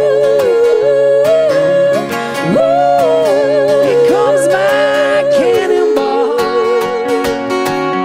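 Live acoustic folk music: two voices sing long wordless notes in harmony, swooping up into them about two and a half seconds in and wavering with vibrato, over a strummed acoustic guitar and ukulele. Near the end the voices drop out and the strumming carries on.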